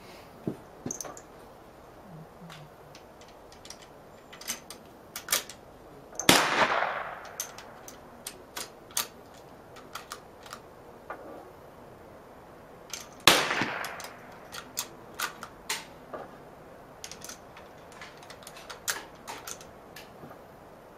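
Two gunshots about seven seconds apart, each followed by a trailing echo, among scattered sharp metallic clicks and knocks from a bolt-action rifle being handled.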